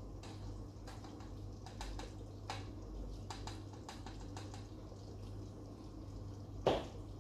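Mutton gravy simmering in a clay pot, with scattered small ticks and pops over a steady low hum. A single louder knock near the end.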